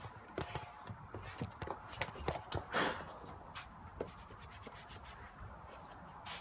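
Scratching and rubbing as glued suede fabric is smoothed down and handled on a plastic car interior pillar, with scattered light clicks and knocks. The handling is busiest in the first half, with one louder scrape about three seconds in.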